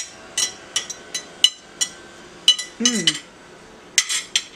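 Metal fork and knife clinking and scraping against a plate while a pancake is cut, about a dozen sharp clinks with a short ring, in clusters. A brief hum of a voice comes in about three seconds in.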